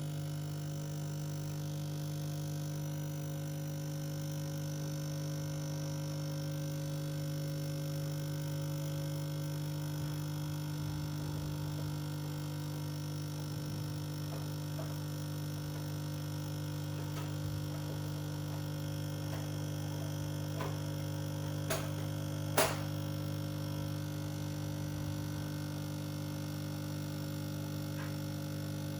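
Steady low electric hum, with two faint clicks a little before two-thirds of the way through.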